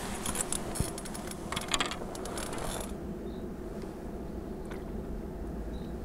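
Clicking and rattling of fishing gear being handled for about the first three seconds, then a steady low wind rumble with a couple of faint ticks.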